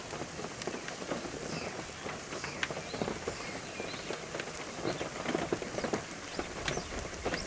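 Rain falling, with scattered drops pattering at irregular intervals.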